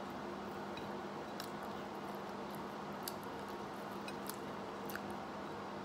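A few faint short clicks and smacks of someone eating rice by hand from a plate, over a steady background hiss and low hum.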